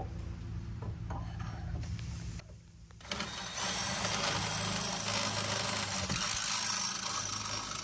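Cordless drill with an extended quarter-inch bit drilling down through an aluminum pontoon railing tube, the motor running steadily. It eases off for a moment about two and a half seconds in, then runs again, louder.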